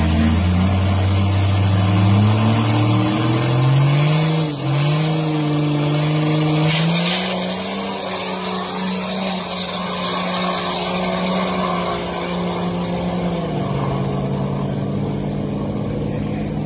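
Turbo-diesel Toyota Land Cruiser 79 with a 1HD-FTE straight-six, making a flat-out drag-strip pass. The engine note climbs in several steps through the gear changes over the first seven seconds, holds a steady high note, then drops sharply about thirteen seconds in as it lifts off.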